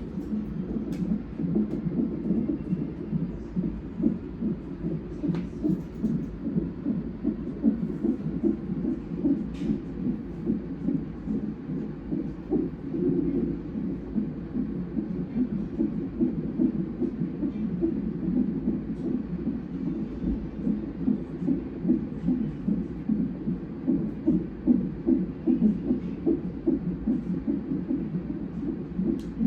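Fetal heartbeat heard through a fetal monitor's Doppler ultrasound probe: fast, rhythmic whooshing pulses that keep an even pace.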